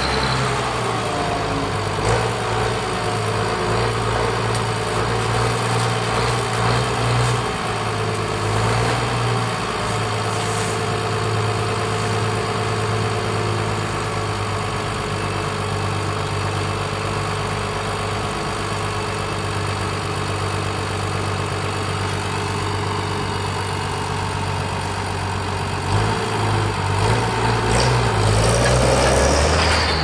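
International 955 tractor's diesel engine running steadily at low revs while its crane holds a fertilizer bag over the spreader. About four seconds before the end it gets louder and changes pitch as the tractor is driven off.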